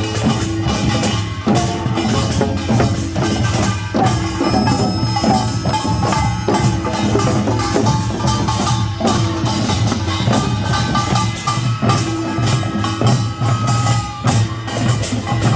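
Korean traditional folk music played by a percussion band: drums beating a dense, driving rhythm, with held tones over the strikes.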